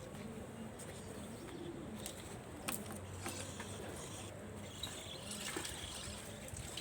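Pigeons cooing low and soft, with a few faint clicks.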